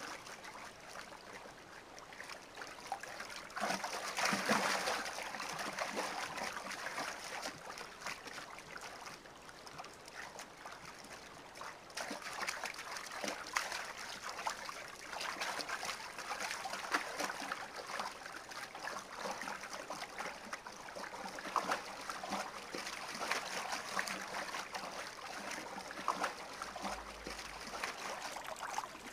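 River water splashing and rippling unevenly as a wildebeest swims across.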